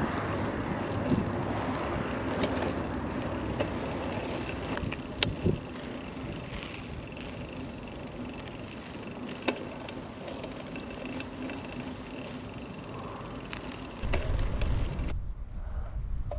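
Mountain bike being ridden: a steady rolling noise from the tyres and bike, with a few sharp clicks and knocks. A low rumble comes in near the end.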